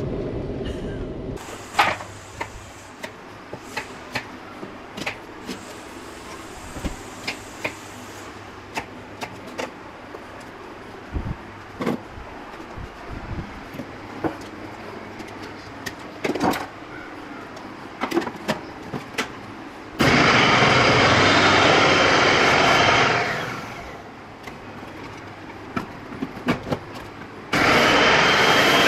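Electric food processor mincing meat. Its motor runs loudly for about three and a half seconds from about twenty seconds in, then winds down, and starts again near the end. Before that there are scattered clicks and knocks of the appliance's plastic parts being handled.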